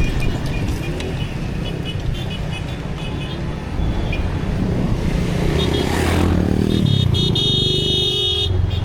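City street traffic: vehicles passing with short horn toots, one vehicle going by close about six seconds in, then a horn held for over a second.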